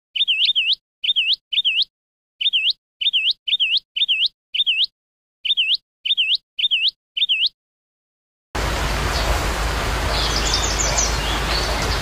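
A short, high bird-like chirp repeated about twenty times in quick groups of two or three, every chirp identical and with dead silence between; it stops about seven and a half seconds in. About a second later a steady hiss of outdoor ambience starts, with a few faint high calls in it.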